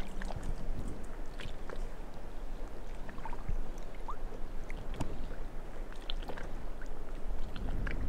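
Gentle lake water lapping with small splashes and scattered light clicks, as a hooked bream is drawn in across the surface.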